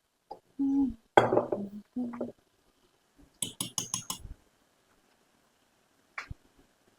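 Kitchenware clinking: a quick run of about six sharp clinks, then one more near the end, preceded by a few short hummed vocal sounds.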